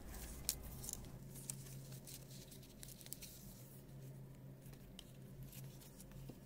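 Faint rustling and a few soft taps of hands handling the paper pages of a notebook, over a low steady hum.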